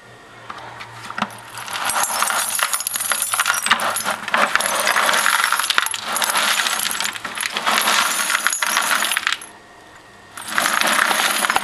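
A bucket of spent primers and fired brass cases being shaken, the small metal pieces rattling and jingling against each other. The rattling stops for about a second near the end, then starts again.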